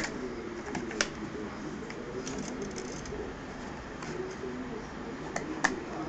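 A few irregular sharp clicks and light knocks from handling a homemade cardboard-and-tape motor rig, over a faint murmur of voices in the room.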